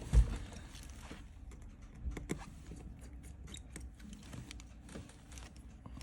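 Scattered light clicks and taps of small repair tools working on an opened iPhone XR's internals, with a low thump just after the start.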